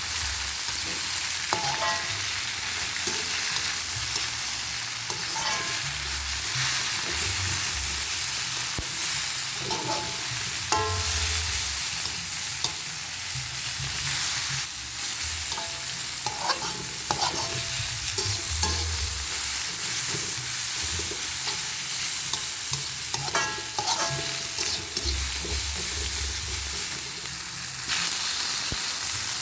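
Food sizzling in hot oil in a pan while it is stirred, with a steady frying hiss. Several short ringing scrapes, and some low knocks, come from the spatula working against the pan.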